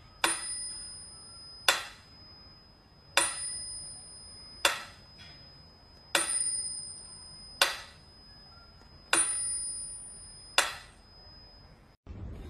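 Mechanical metronome ticking slowly, about one tick every second and a half, with a bell ringing on every other tick.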